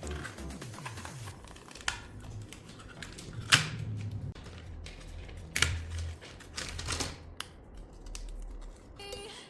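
Irregular clicks and knocks of small wooden kit parts being handled and fitted together. The sharpest knock comes about three and a half seconds in and another about two seconds later.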